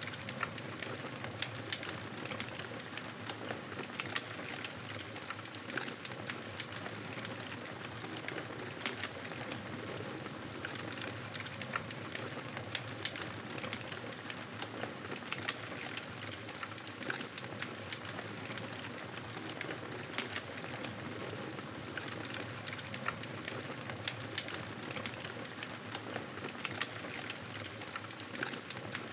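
Campfire crackling steadily: a soft hiss with frequent small sharp pops and snaps throughout.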